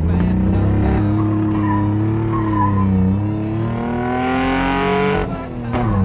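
Pickup truck engine heard from inside the cab under way, its pitch climbing as it accelerates. Near the end the pitch drops sharply as it shifts up, and then it runs on steady.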